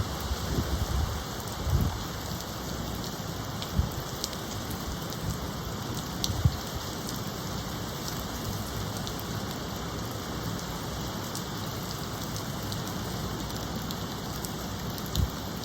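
Steady rain falling in hurricane weather ahead of a storm, with scattered drop ticks and a few brief low thumps.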